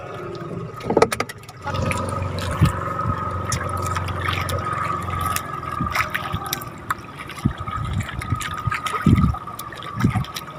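Water trickling and sloshing steadily, after a few sharp knocks about a second in.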